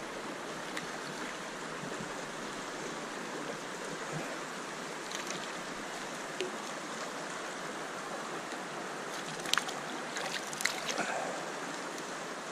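Steady rush of a shallow stream flowing over rocks, with a few short splashes and clicks near the end as a trout is landed in the net.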